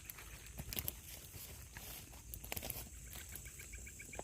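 Night outdoor ambience of calling insects: a steady high-pitched drone, with a rapid even chirping call starting about three seconds in. A few faint clicks and taps are scattered through it.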